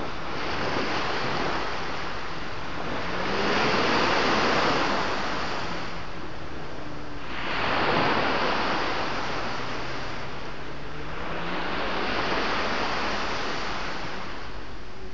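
Sea waves breaking and washing up the shore, the surf swelling about every four seconds over a steady rush.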